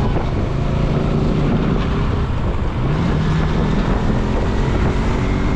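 Motorcycle engine running at road speed under strong wind noise on the microphone; the engine's pitch rises slightly about three seconds in.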